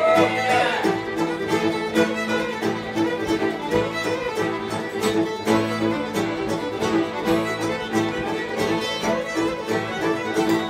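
Acoustic string band playing an old-time fiddle tune: several fiddles carry the melody together over a strummed acoustic guitar and a mandolin, with a steady beat.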